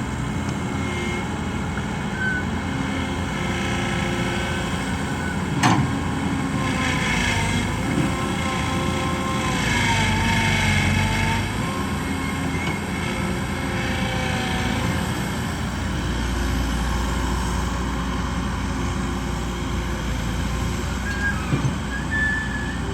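Kobelco SK120 Mark 3 excavator working at a loading dump truck: a steady diesel drone with a tone that rises and falls through the middle, a single sharp knock about six seconds in, and a deeper rumble coming up in the last third.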